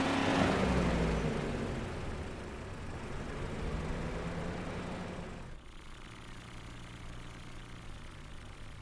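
Cartoon car engine sound effect: a car revving as it speeds away, its pitch rising then falling and fading over the first few seconds. About two-thirds of the way in it cuts to a quieter, steady low engine hum.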